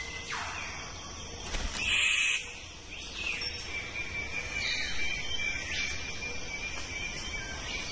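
Rainforest ambience with several bird calls sweeping down in pitch, a louder noisy burst about two seconds in, and a thin steady high tone from about three seconds in.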